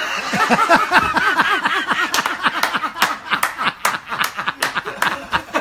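Hearty, sustained male laughter in quick bouncing ha-ha bursts, set off by a joke's punchline. A run of sharp smacks is mixed in through the middle.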